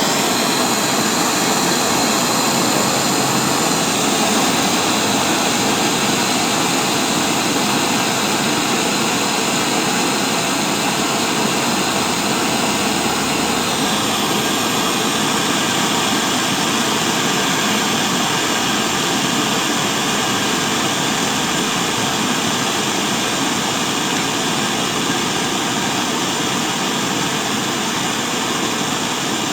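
Handheld brazing torch flame burning steadily with a loud, even rushing hiss while it heats the coil lead ends for joining; the tone shifts slightly twice.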